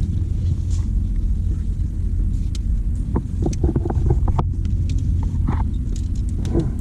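Wind buffeting the microphone: a steady low rumble. Short scrapes and clicks come in a cluster about three seconds in.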